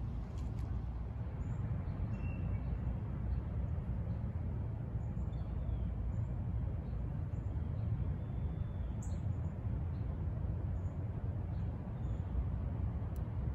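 Outdoor ambience: a steady low rumble with faint, short bird chirps scattered throughout.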